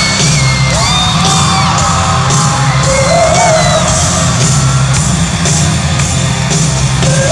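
Live pop-rock band playing an instrumental break between chorus and verse, with loud electric guitar and steady drums, and high whoops from the crowd over it.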